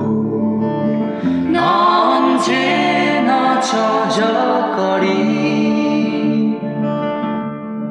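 Music: a slow song with a held, gliding melody over plucked guitar accompaniment.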